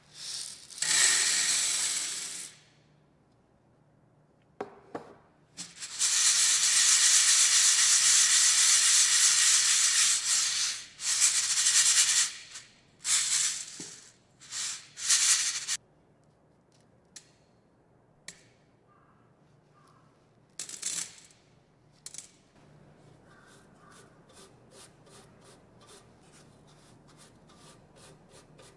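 Freshly roasted coffee beans poured into a bean cooler's metal mesh basket, rattling loudly in several pours with short gaps between, the longest lasting about four seconds. Near the end, soft quick strokes of a brush sweeping chaff off the cooler's fan grille, about three a second.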